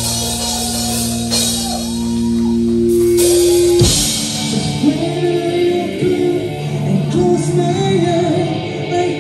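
Live rock band playing with a vocalist singing over guitars, bass and drums. For the first four seconds the band holds sustained notes over a steady bass; then it breaks into a busier passage under the vocal line.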